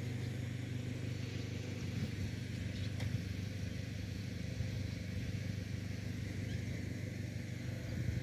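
The diesel engine of an Agri Master 1604 160 hp tractor, idling steadily with an even low rumble.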